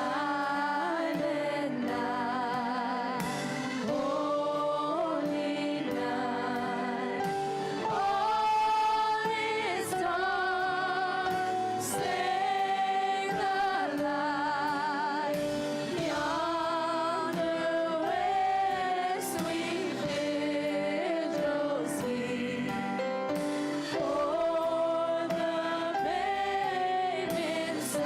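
Church worship music: voices singing long held notes with vibrato over an instrumental accompaniment.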